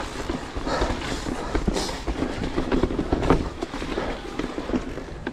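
Electric mountain bike rolling fast over a rocky, gravelly trail: the tyres crunch over stones and the bike rattles with many small, irregular knocks.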